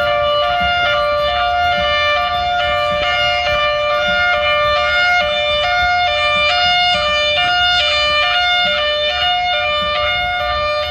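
Air-raid siren app playing a Thunderbolt 1003 siren's hi-lo signal, a loud steady tone switching back and forth between two close pitches.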